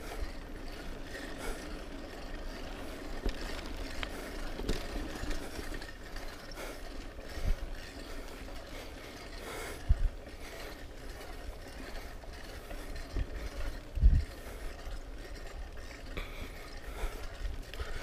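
Off-road vehicle rolling over a rough trail, its body and parts rattling steadily, with a few heavy low thumps from bumps; the hardest knock comes about 14 seconds in.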